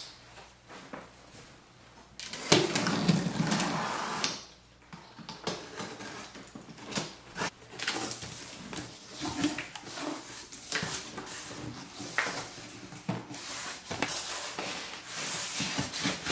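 Cardboard box being handled and opened: the box scraping and sliding, with the longest scraping rustle about 2 to 4 seconds in. Flaps are folded back with small knocks and rubs, and the foam packing inside is handled near the end.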